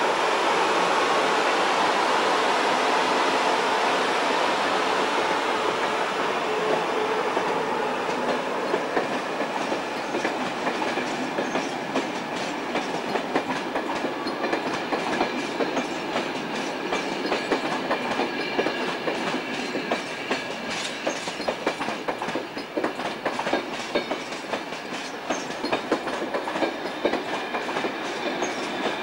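Deutsche Reichsbahn electric locomotive and passenger coaches pulling out. A steady drone with held tones eases over the first several seconds, then the coach wheels take over with rapid, irregular clickety-clack over rail joints and points as the train rolls away.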